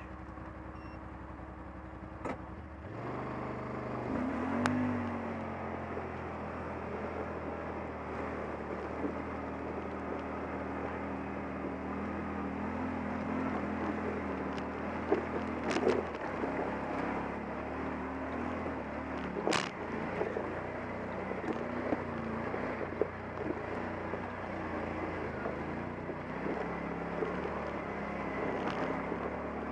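Yamaha Wolverine X4 side-by-side's engine running steadily under load as it climbs, picking up revs about three seconds in. A few sharp knocks come from the machine jolting over the rough trail.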